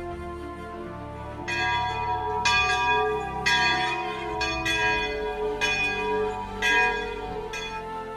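A church bell ringing, struck about once a second, seven strokes starting about a second and a half in, each stroke ringing on into the next.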